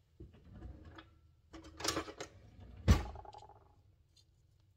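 A metal garlic press being worked and scraped clean with a fork: scattered clicks and scraping, a busier clatter about two seconds in, and a sharp metallic knock just before three seconds that rings briefly.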